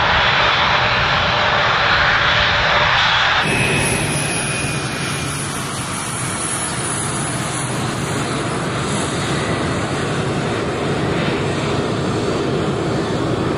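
Boeing 747 jet engines running loud, a dense rushing noise that cuts off abruptly about three seconds in. It gives way to a slightly quieter, steady jet engine rumble with a thin high whine from a 747 moving past close by.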